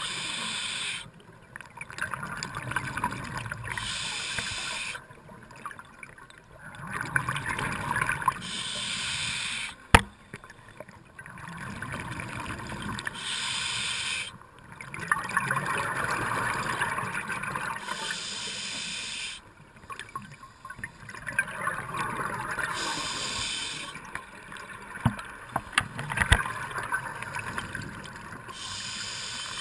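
A scuba diver breathing through an open-circuit regulator, heard underwater. Each breath is a hiss of inhaled air followed by a rumble of exhaled bubbles, repeating every few seconds. A single sharp click about ten seconds in is the loudest moment.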